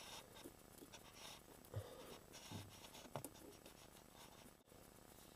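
Faint scratchy rustling and a few light clicks from hands working adhesive tape onto a refrigerator part.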